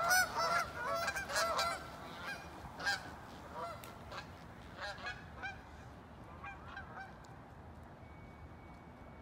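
A flock of Canada geese honking as they fly off together. Many overlapping honks at first, thinning out and growing fainter over the last few seconds.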